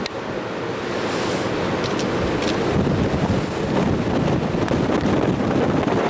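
Wind buffeting the microphone over the steady rush of sea water from a ferry underway.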